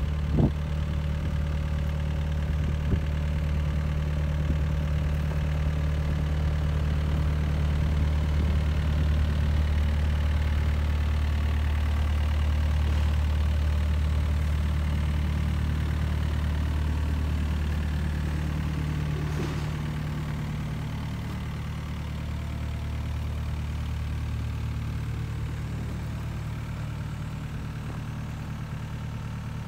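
Komatsu PC80MR-3 midi excavator's diesel engine running steadily, with a knock right at the start; it gets a little quieter about two-thirds of the way through.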